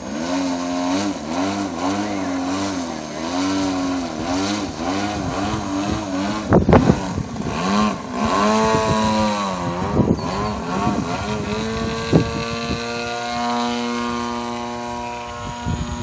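Engine of an Edge 540 radio-controlled aerobatic model plane running in flight, its pitch rising and falling over and over, then holding steadier near the end. Wind gusts buffet the microphone a few times in the middle, and these are the loudest moments.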